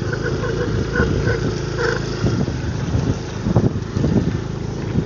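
Engine running at a steady pitch, turning rougher and uneven after about two seconds.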